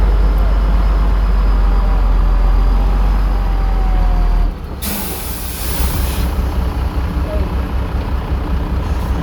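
Heavy diesel earthmoving machine's engine running with a loud, deep, steady drone. About four and a half seconds in, the engine drops in level to a pulsing rumble, and a sharp hiss of released air follows for about a second and a half.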